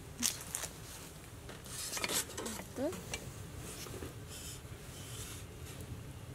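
Metal clinks and scrapes of a long-handled hot sandwich press being handled and swung open on a wood stove's steel top, with a short rasping scrape about two seconds in.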